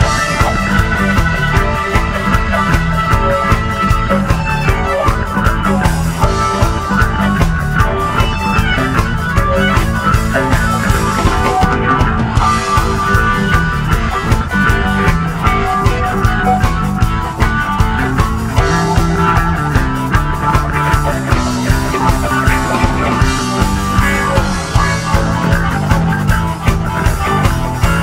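Live rock band playing an instrumental jam: drum kit keeping a steady beat under bass guitar, electric guitar and keyboards.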